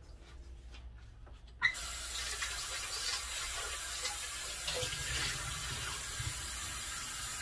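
Kitchen tap turned on about one and a half seconds in, water running steadily into the sink and over a small wok as it is rinsed, then cut off suddenly at the end.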